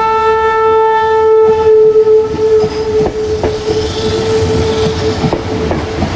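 Meitetsu 7000 series Panorama Car's music horn holding one long note of its melody, which fades out near the end. The electric train's wheels click over the rail joints as it rolls past.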